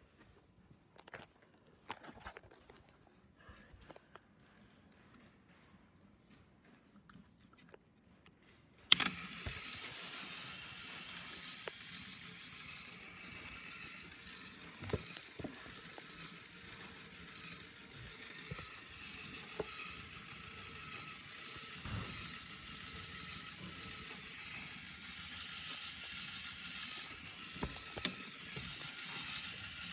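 Faint clicks of plastic LEGO parts. About nine seconds in, a sharp click and a steady hissing whir start: a motorized LEGO car wash's motors and Technic gearing running, with occasional clicks.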